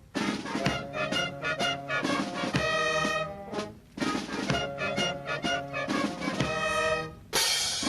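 Brass music played in long held chords, in phrases broken by short pauses, with a bright crash near the end.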